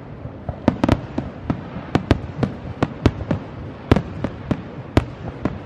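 Aerial fireworks display bursting: a rapid, irregular run of sharp bangs and pops, about three or four a second.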